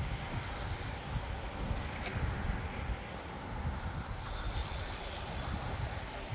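Outdoor street ambience: a steady low rumble, with one sharp click about two seconds in.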